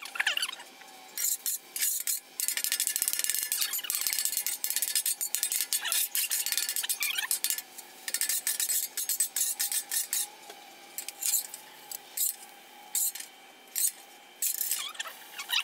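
Metal spatula scraping and chopping on the steel top of a Blackstone griddle, scrambling eggs. The scrapes come fast and close together through the first seven seconds or so, then as separate strokes while the bare griddle is scraped clean.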